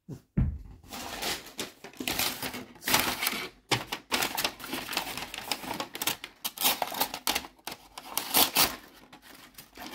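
A folding knife's blade slicing and sawing into a USPS mailing envelope, the envelope crinkling and crackling in a dense run of rustles as it is held and cut: a test cut of the blade's sharpness.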